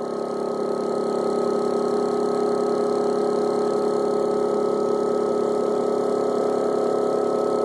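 A four-pole monopole energizer motor, spinning the 400 W wind generator it drives, running with a steady electric hum made of several constant tones. It grows a little louder in the first second as the rotor is still gaining speed.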